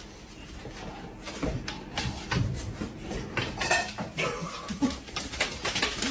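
Irregular light clattering and clicking of hard objects knocking together, like dishes or utensils.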